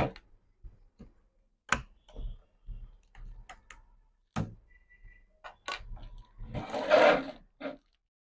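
Scattered light plastic clicks and taps as the protective cap is taken off a motherboard's CPU socket, with a louder rustling scrape about seven seconds in.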